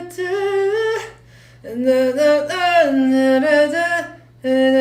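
A man singing a Korean ballad melody without accompaniment: two sung phrases with long held, gliding notes and a short breath pause between them.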